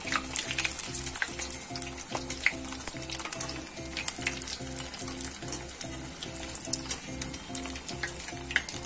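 Vermicelli-coated potato cutlets deep-frying in hot oil: continuous sizzling with frequent small crackles and pops, the wire strainer now and then moving them in the oil. Background music with a steady repeating pattern of notes plays under it.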